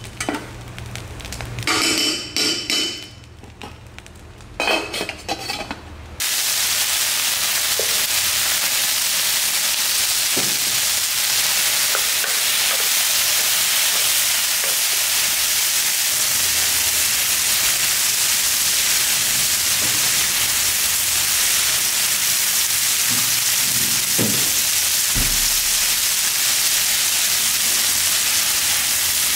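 For the first six seconds, a metal spoon scrapes and fluffs cooked rice in an aluminium rice-cooker pot in a few short bursts. About six seconds in, beef cubes frying with garlic and butter in a nonstick pan start a steady sizzle that runs on, with a few light knocks of a wooden spatula stirring them.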